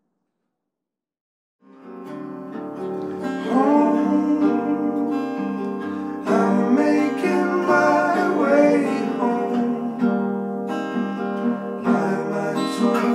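Silence for about a second and a half, then outro music starts: acoustic guitar with a singing voice.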